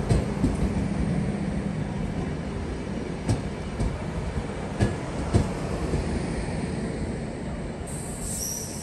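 ÖBB Nightjet passenger coaches rolling slowly into the station: a steady rumble with scattered clacks and knocks of wheels over rail joints. A high squeal starts near the end.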